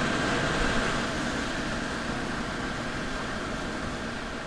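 A machine running steadily: a smooth rushing noise with a steady high whine, slowly growing fainter.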